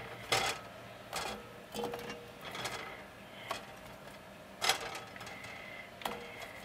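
Raw carrot pieces being dropped and set by hand into a cast iron pot packed with potatoes and onions: about seven light, irregular knocks, the loudest a bit under five seconds in.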